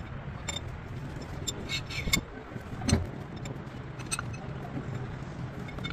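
Workshop noise: scattered light metallic clicks and clinks, with one heavier knock about three seconds in, over a steady low hum.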